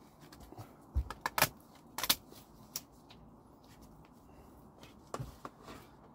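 Secateurs cutting a dahlia tuber's old stem, with handling of the dry stalks: a run of sharp clicks and snaps from about one to two seconds in, another click shortly after, and a couple more near the end.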